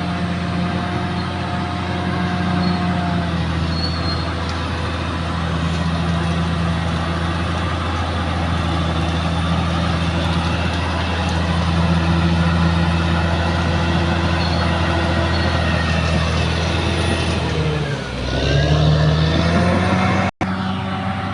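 Caterpillar D6R XL bulldozer's diesel engine running steadily under working load. Near the end the engine note sags and then climbs back up over a second or so.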